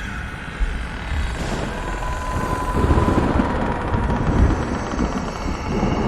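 Thunder: a sudden crack about half a second in, building into a long, loud low rumble, over steady eerie droning tones.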